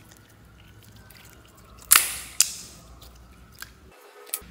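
Purple slime squeezed between the fingers, its trapped air pockets popping: two loud, sharp pops about half a second apart around two seconds in, then a couple of fainter clicks near the end.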